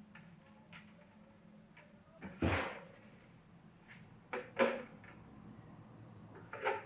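Scattered knocks and clunks of objects being handled: the loudest, with a dull thump, about two and a half seconds in, a quick pair a little after the middle and one more just before the end. Light clicks fall between them over a low steady hum.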